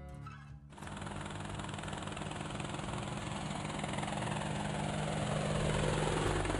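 Helicopter sound effect: rapid rotor chop over a steady engine hum, growing steadily louder as the helicopter approaches.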